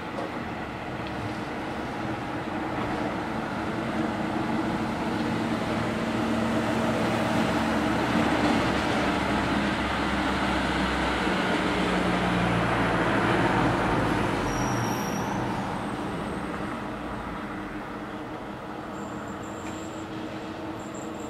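Road traffic: cars and a van passing on a road, their engine and tyre noise swelling to a peak about two-thirds of the way through and then fading. A faint high whine starts near the end.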